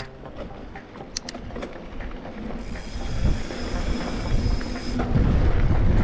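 Wind buffeting and tyre rumble picked up by a mountain bike's handlebar-mounted camera as the bike rolls down a dirt trail. The noise builds up and is loudest from about five seconds in, with a couple of sharp clicks early on.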